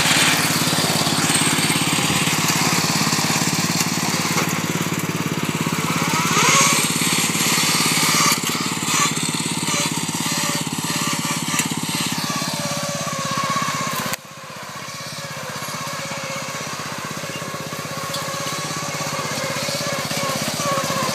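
Engine of a modified Murray riding lawn mower running as it is driven over grass and brush. About fourteen seconds in the level drops suddenly, leaving a quieter, steady engine note.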